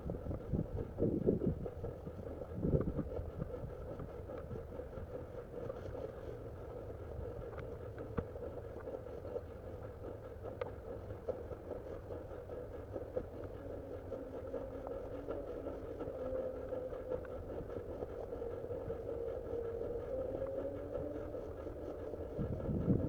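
A steady hum that wavers slightly in pitch, with wind buffeting the microphone a few times.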